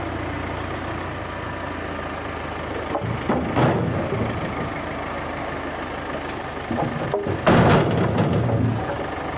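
A large engine running steadily at low revs, with two louder rough rushing noises, about three and a half and seven and a half seconds in, the second lasting about a second.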